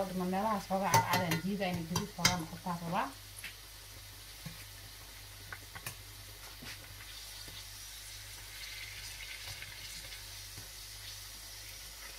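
Potato-coated eggs deep-frying in hot oil: a steady sizzle. In the first three seconds a voice and a few sharp clicks of the metal slotted spatula sound over it.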